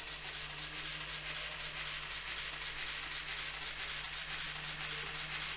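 N-scale model steam locomotive running on the layout: a steady motor hum under a hissing chuff that pulses about four to five times a second.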